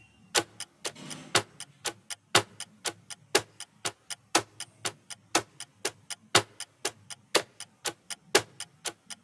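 Ticking-clock countdown sound effect of a quiz timer: sharp, even ticks, a louder one once each second with lighter ticks between.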